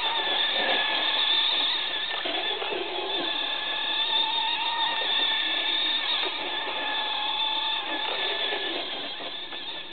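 Motor of a remote-control truck whining steadily while it drifts through wet snow, its pitch wavering slightly. It fades a little near the end.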